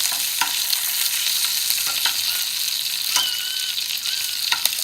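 Link sausages frying in a skillet, the hot grease sizzling steadily with scattered sharp pops.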